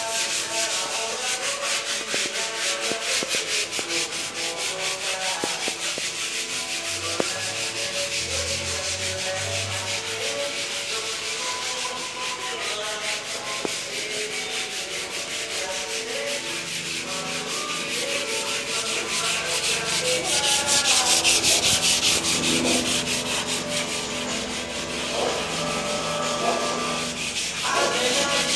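Sandpaper rubbed by hand over wall filler on a rendered wall: a continuous dry rasping made of many fast short strokes, a little louder about three quarters of the way through.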